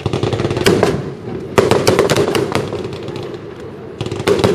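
Fireworks going off in quick succession: dense crackling and popping from bursting shells, with loud salvos about half a second in, about a second and a half in, and again near the end.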